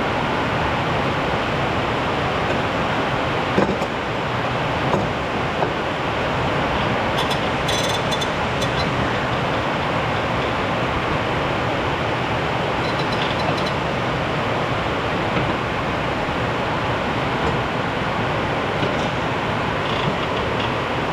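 Steady, loud rain hiss, with a few short metallic clinks of tools on the mower's blade hardware.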